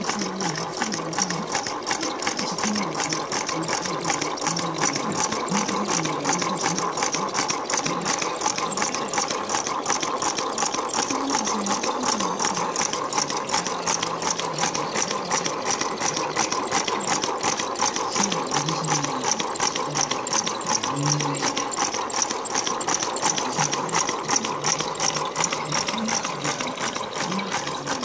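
Homemade three-cylinder solenoid engine on 12 V DC running steadily, its plungers and switching contacts making a rapid, even clatter as the wooden flywheel spins.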